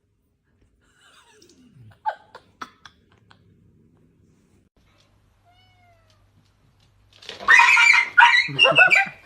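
A cat meowing loudly in drawn-out, wavering cries for about two seconds near the end, after a few faint clicks and taps.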